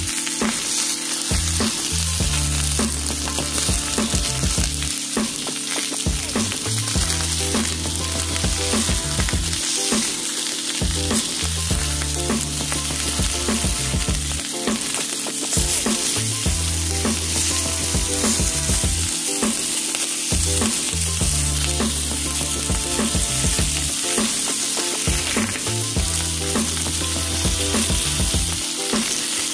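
Salmon fillets and eggplant slices sizzling steadily in a hot ridged grill pan.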